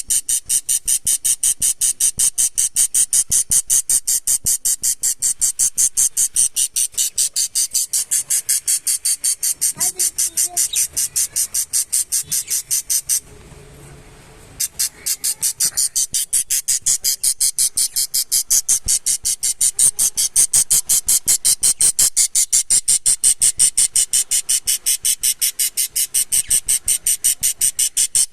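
Four-day-old budgerigar chick cheeping in a rapid, steady rhythm of about five high-pitched peeps a second, pausing for a second or two midway.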